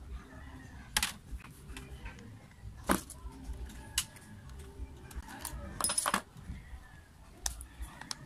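Scattered sharp clicks and light metallic clinks, about half a dozen spread out with a quick cluster near the middle, from a disassembled angle grinder's housing and a soldering iron being handled and tapped together.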